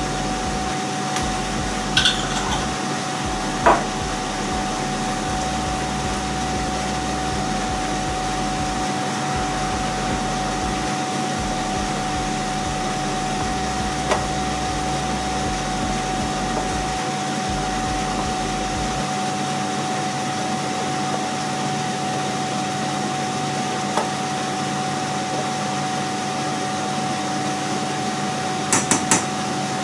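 Steady whirring hum with an even hiss, like a fan running, broken by a few single light knocks of a utensil against the pan, with a quick cluster of them near the end.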